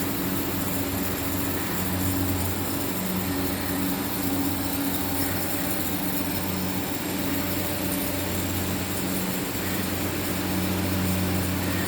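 Automatic mawa kettle machinery running steadily: a constant low motor hum over an even hiss.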